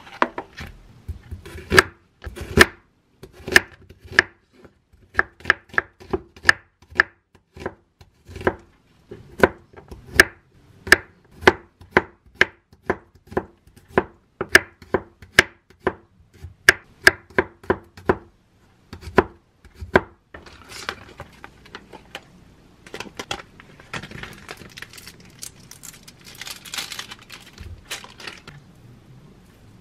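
Kitchen knife slicing onion and garlic on a wooden cutting board: a long run of sharp knocks, roughly one to two a second. The knocks stop about two-thirds of the way through and give way to a softer rustling.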